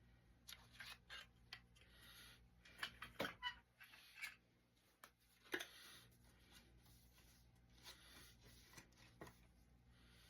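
Faint handling noises of a cassette tape and its plastic case: scattered light clicks and short rustles, a cluster of sharper clicks about three seconds in and another about five and a half seconds in.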